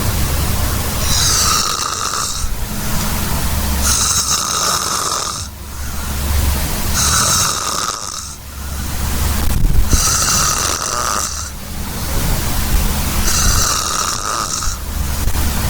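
A person snoring loudly in a steady rhythm, about one snore every three seconds, five in all. Each snore has a deep rumble and a hissing, whistling high part that lasts about a second.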